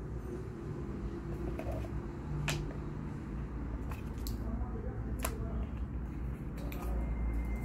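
Unboxing handling of a phone's cardboard box and its paper insert: a few sharp clicks and taps as the card is lifted out and the cable and charger are reached for, over a steady low hum.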